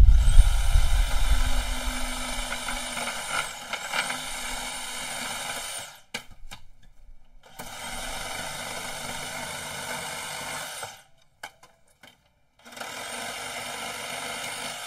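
DeWALT FlexVolt Advantage 20V MAX cordless reciprocating saw cutting pallet wood in three runs: a long one of about six seconds, loudest at the start with heavy thudding as the blade bites, then two shorter runs. Each run starts with the motor's whine rising to speed.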